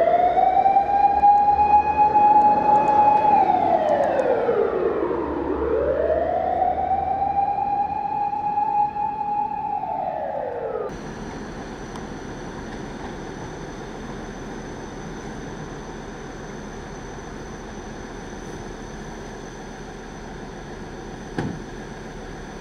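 Fire engine siren wailing in two slow cycles, each rising, holding a steady high pitch and then falling. It cuts off abruptly about eleven seconds in. What follows is quieter steady background noise with a faint high steady whine and a single click near the end.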